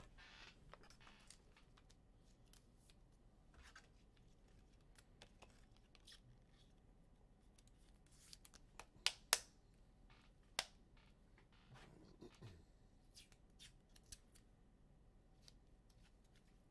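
Faint handling of trading cards and their packaging: light rustles and small clicks, with three sharp clicks about nine to ten and a half seconds in.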